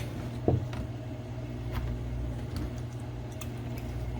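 Milk being poured into a milk frother jug and the container handled: a single dull thump about half a second in and a few light clicks over a steady low hum.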